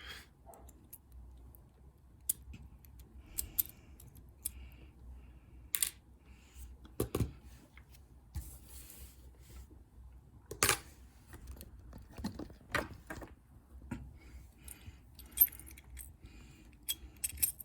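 Small metal clicks and taps from a disassembled pin-tumbler lock cylinder and its loose pins being handled, with a few louder knocks scattered through.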